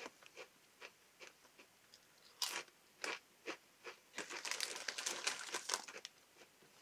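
McCoy's ridged potato crisps crunching as they are bitten and chewed. There are a few sharp single crunches, then a denser run of crunching about four seconds in.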